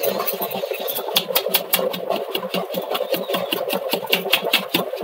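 Rice flour being sifted through a round hand sieve, shaken and tapped in a quick, even rattle of about five or six taps a second.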